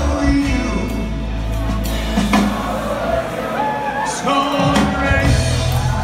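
Live band of harp, guitar, drum kit and upright bass playing with singing, recorded from the audience in a large, echoing hall.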